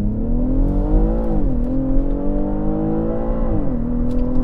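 BMW X6 accelerating hard from a launch-control start, the engine note rising and then dropping suddenly twice as the eight-speed automatic shifts up quickly.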